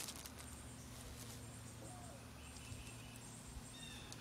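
Faint outdoor ambience: short high chirps a few times over a low steady hum, with light rustling and clicks from a plastic headband being handled on a towel near the start.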